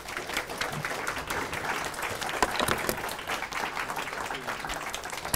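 Audience applauding steadily, many hands clapping in welcome for a speaker.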